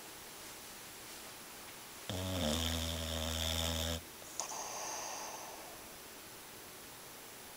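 Sleeping boxer dog snoring: one loud, deep, pitched snore on the in-breath lasting about two seconds, then a softer airy breath blown out through her cheeks.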